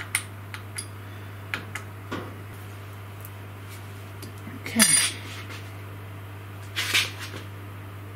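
Scattered light metallic clinks and knocks from hand work on a CNC router's spindle clamp bracket while it is shimmed with brass shim stock. The loudest comes about five seconds in, another about two seconds later, over a steady low hum.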